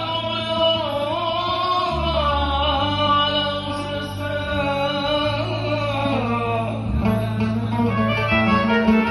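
Oud playing in Middle Eastern style, with a voice holding a long, wavering sung line over it.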